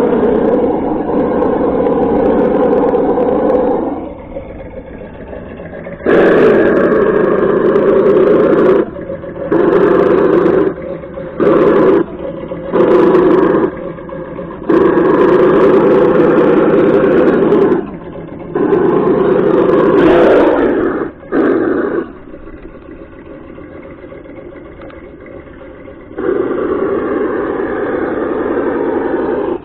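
Engine-sound simulator box on a brushless RC monster truck, playing a simulated combustion engine: a quieter idle broken by short revving blips as the throttle is worked, with a longer rev near the end.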